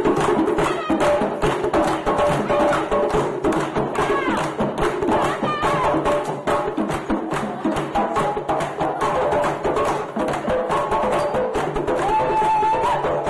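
Live Caribbean-style percussion music: fast, busy drum and wood-block-like strokes at an even pace, with voices singing and calling over it.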